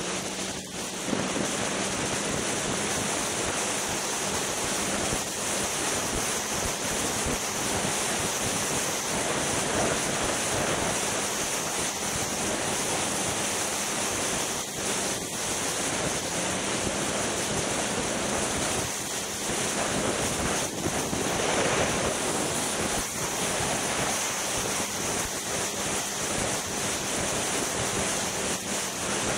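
A Polaris Rush Pro-R snowmobile's two-stroke engine running at a steady cruising speed, mostly buried under a continuous rush of wind on the microphone.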